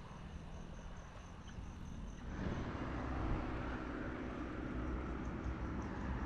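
Wind and road noise on a bicycle-mounted camera while riding, a steady rushing hiss with low rumble that grows louder a couple of seconds in.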